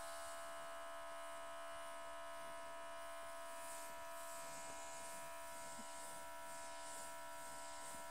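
Small cordless airbrush compressor running steadily with an even, high motor whine, with the hiss of air and paint spraying from the airbrush.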